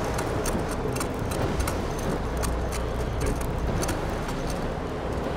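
Steady low rumble of a fishing boat at sea, with a scatter of light, irregular clicks and ticks over it.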